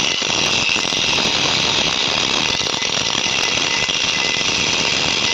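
Angle grinder grinding down a weld on a thick steel tractor plate: a loud, steady, hissing grind.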